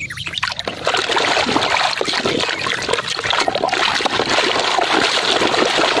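Water sloshing and splashing in a plastic basin as a hand swishes and scrubs muddy plastic toys through it, a continuous busy splashing that picks up about a second in.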